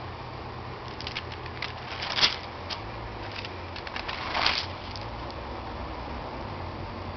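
A page of a stamp stockbook being turned by hand: crackly rustling of stiff paper with two louder swishes a couple of seconds apart, over a steady low hum.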